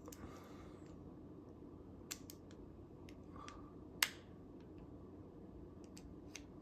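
Sparse small clicks and scratches of a pin prying the plastic screen cover off a Ledger Nano hardware wallet, the sharpest click about four seconds in, over quiet room tone.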